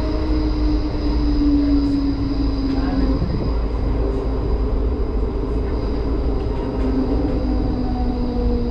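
HermeLijn low-floor tram running on street track, heard from the cab: a steady rumble of wheels and running gear. Over it a low whine slides slowly down in pitch, once in the first three seconds and again near the end.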